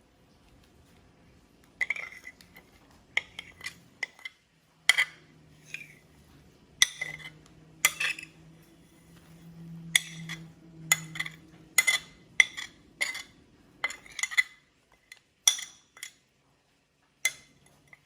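A spoon clinking and tapping against a bowl and spice containers while spices are added to the chicken: many sharp, irregular clinks with a short ring.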